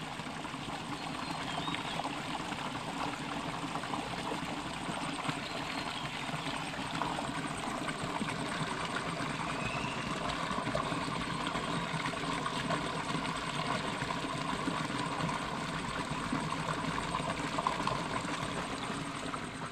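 Rushing mountain stream: water pouring over rocks in a steady wash of noise.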